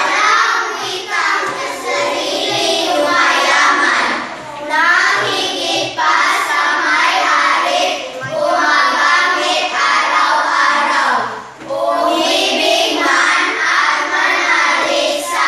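Children singing together.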